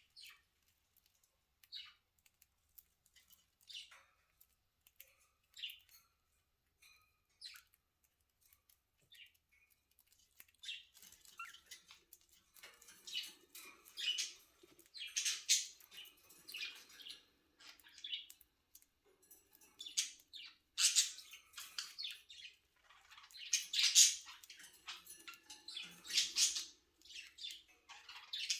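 Pet budgerigars chirping: single short calls about every two seconds, then busier, louder chattering from about ten seconds in.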